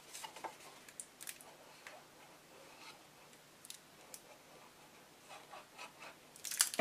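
Faint rustling and light taps of a cardstock box being handled as glued flaps are folded and pressed together, with one sharp knock near the end.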